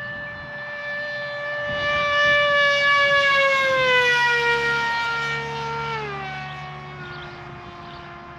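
Electric motor and 8x4 propeller of an RC plane (SunnySky 2216 1300kv motor on 4S) whining as it flies past. The whine swells, then drops in pitch about four to six seconds in as the plane passes and moves away.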